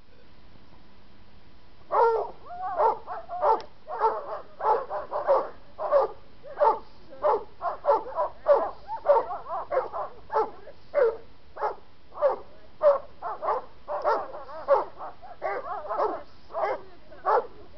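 A large dog barking over and over, short separate barks at about one to two a second, starting about two seconds in.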